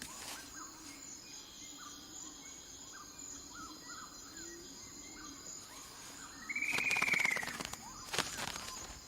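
Outdoor ambience with small scattered bird chirps, then about seven seconds in a loud harsh rasping bird call, a fast clicking rattle with an arching whistled note over it. A shorter rasp follows about a second later.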